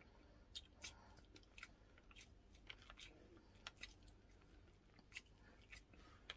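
Faint chewing, with a scattering of short, soft mouth clicks at irregular intervals.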